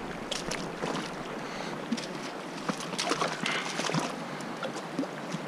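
River water rushing and lapping over rocks in shallow water, with scattered small splashes and trickles close by.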